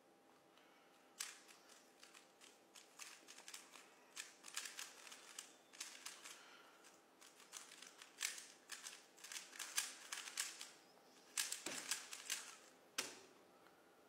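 Faint, rapid plastic clicking and rattling of a 3x3 puzzle cube's layers being turned quickly by hand, in quick bursts with short pauses.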